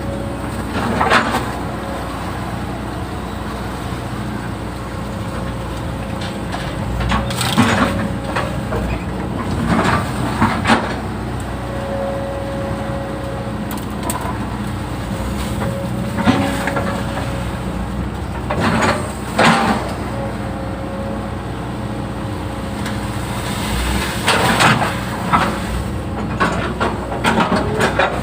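Hydraulic excavator running steadily while digging a ditch, its engine hum joined now and then by a held hydraulic whine. Short sharp cracks and crunching knocks come every few seconds as the bucket works the ground, most often near the end.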